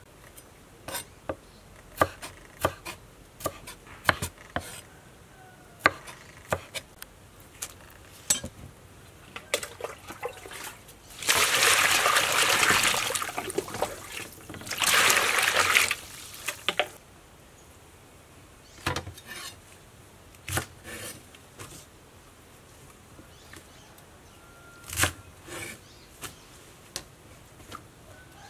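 Water swishing and splashing as hands wash julienned lotus root in a pot of water, in two stretches of a few seconds each near the middle. Before and after, scattered sharp clicks and knocks of knife work on the lotus root.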